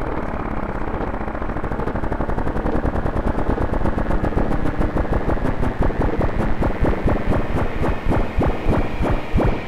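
Experimental electronic music: a rapid, stuttering train of sharp clicks over a low hum, growing louder and more insistent through the passage.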